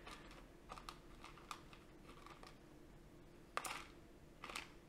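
Faint, scattered light clicks and taps of small parts being handled while O-ring seals are fitted, with a sharper click about three and a half seconds in and a few more near the end.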